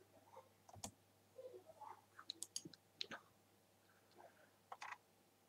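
Faint, irregular clicks of a computer mouse and keyboard, a few sharp taps spread out with quiet gaps between them.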